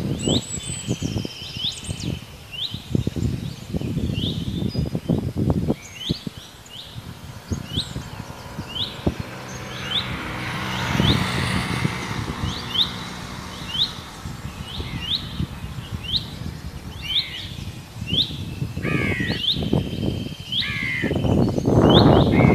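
A small bird repeating a short, high chirp at a steady pace, a little more than once a second, over low rumbling gusts of wind on the microphone. In the last few seconds crows caw, the loudest sounds here.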